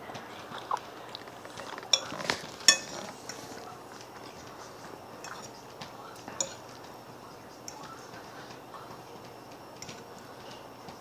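Fork clinking and scraping against a plate: a cluster of sharp, ringing clinks a couple of seconds in, another a little past the middle, and softer taps between.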